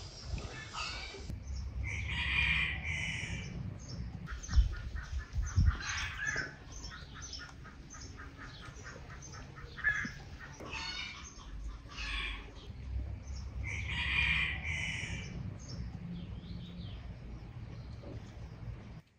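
Domestic chickens clucking, with a run of quick repeated clucks in the middle, and two louder calls (one about two seconds in, one later on) that fit a rooster crowing.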